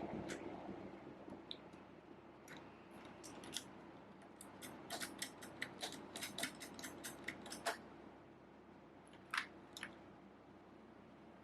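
Irregular light plastic clicks and taps from a mechanical keyboard and its keycaps being handled. The clicks come thickest around the middle, with a couple of sharper clicks a little later.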